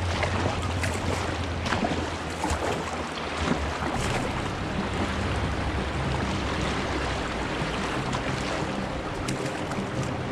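Rushing river water around a kayak, a steady wash with scattered short splashes.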